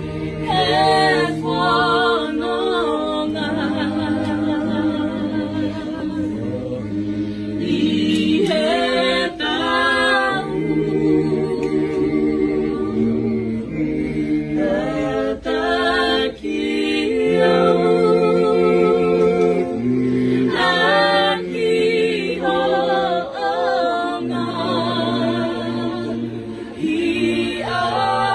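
A group of voices singing a hymn a cappella in several-part harmony, with long held notes and vibrato.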